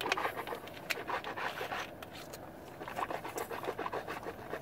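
A person rinsing his mouth with water: irregular wet swishing and sloshing with quick breaths through the nose and mouth.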